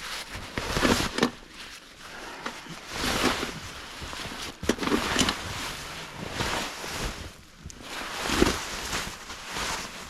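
Footsteps crunching and swishing through deep snow, a heavy step every second or so.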